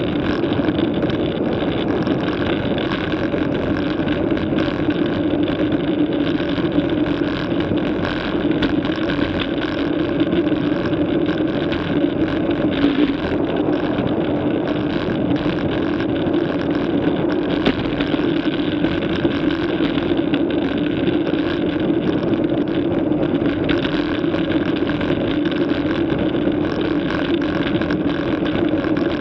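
Steady rush of wind and tyre noise picked up by a camera mounted on a bicycle riding at about 30 km/h, with a constant low hum and no breaks.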